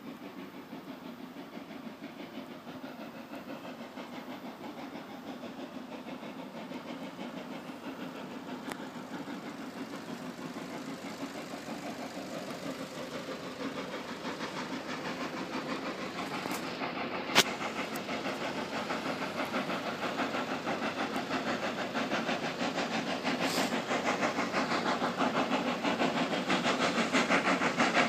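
Hunslet Austerity 0-6-0 saddle-tank steam locomotive working hard up a gradient, its exhaust beating in a steady rhythm and growing louder as it approaches. A single sharp click a little past halfway.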